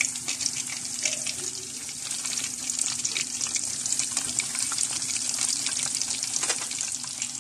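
Gram-flour battered fish pieces deep-frying in hot oil in a karahi: a steady, dense sizzle with a constant fine crackle.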